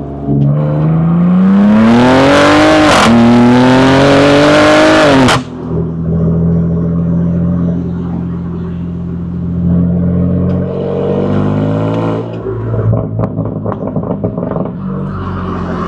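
BMW G82 M4 Competition's S58 twin-turbo straight-six with an Akrapovic titanium exhaust, accelerating hard. The revs climb, drop briefly at a gear change about three seconds in, climb again and cut off sharply when the throttle closes. It then settles into a steady drone, with a run of short crackles in the last few seconds.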